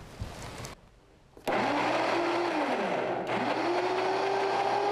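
Countertop blender motor starting up suddenly and blending a thick load of coconut meat, cashews and water. Its whine rises, dips about three seconds in, then climbs again and holds steady.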